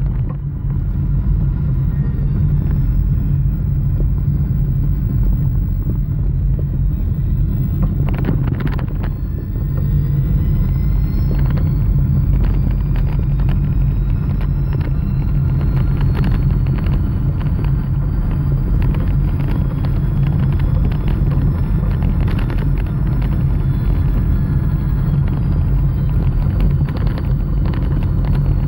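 REVA G-wiz electric car driving: steady road and running rumble, with the electric drive's thin whine rising in pitch as the car speeds up from about eight seconds in and easing down near the end. Occasional short knocks from the road.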